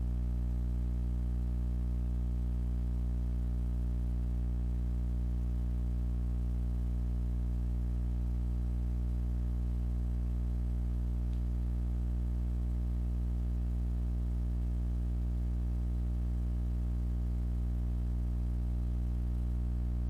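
A steady low hum with a stack of even overtones, unchanging in pitch and level throughout.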